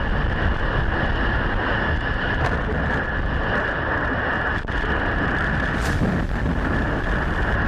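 Steady, loud rushing noise of wind buffeting a phone microphone outdoors.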